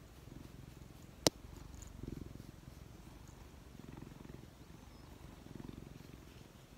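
Domestic cat purring, a low rumble that swells and eases with each breath about every two seconds: the sound of a relaxed cat. A single sharp click about a second in.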